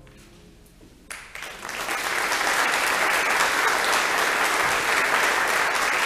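Audience applauding: clapping breaks out about a second in, just after the piano music ends, and swells within a second to steady, full applause.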